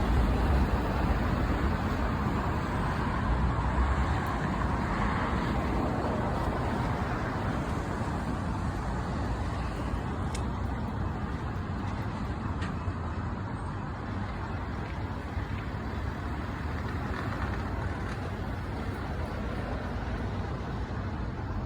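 Steady low rumble of a passing vehicle, loudest at first and slowly fading.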